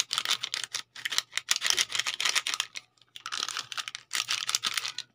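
Foil sachet of powdered probiotic shaken and crinkled by hand over a plastic water container, in three bursts of fast, sharp rattling with short pauses between.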